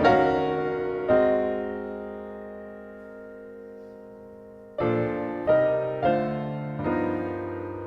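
Solo piano playing a slow ballad: a chord struck and left to ring, fading for a few seconds, then a group of four chords struck about half a second to a second apart.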